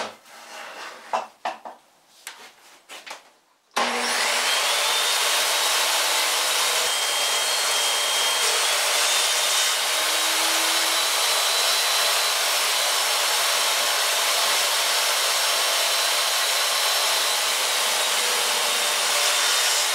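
A few knocks as a thick sapele mahogany block is handled, then a portable table saw starts suddenly about four seconds in and cuts through the block in one long, steady, loud pass, with a faint high motor whine over the cutting noise.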